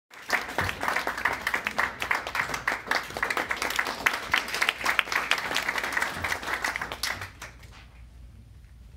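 Audience applauding, many hands clapping together, dying away about seven seconds in.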